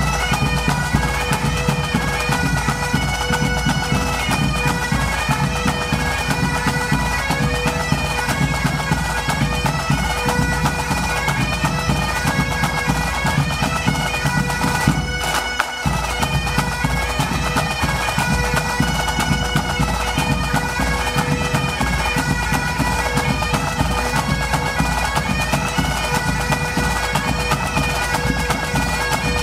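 Pipe band playing: Highland bagpipes sounding a steady drone under a moving chanter melody, with snare, tenor and bass drums. The drums drop out for a moment about halfway through while the pipes carry on.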